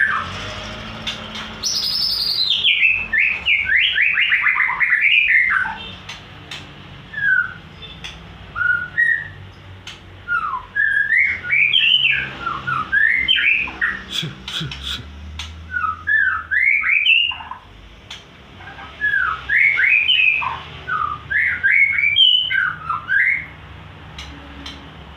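White-rumped shama singing: bursts of quick rising and falling whistled notes, separated by short pauses.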